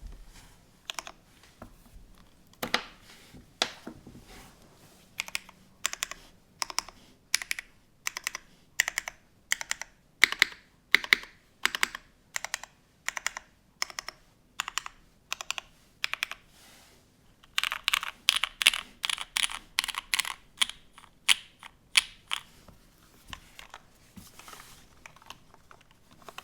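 Typing on a custom DM mechanical keyboard with an aluminium plate, O-ring mounting, GMK Panels keycaps and lubed Nixie switches: keys struck one at a time, about two a second. A little over two-thirds of the way through comes a faster, louder flurry of keystrokes, and the last few strokes are softer.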